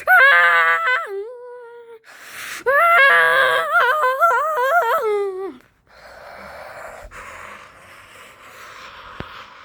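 A person's voice making two long, shaky, wavering "aah" cries, the pitch trembling rapidly, as the puppet's blast-off. A faint steady hiss follows for the last few seconds.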